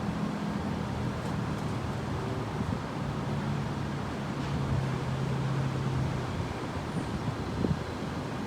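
Storm wind buffeting the microphone in a steady rushing rumble, with a low hum underneath that rises and fades.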